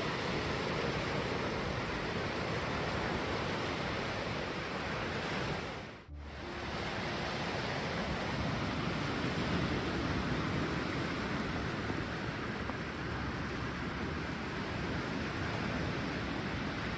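Sea waves washing on the shore in a steady, even rush, with the sound cutting out for a moment about six seconds in.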